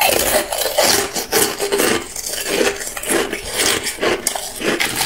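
Hard clear ice being crunched and ground between the teeth close to the microphone, a dense run of irregular crunches with no pauses.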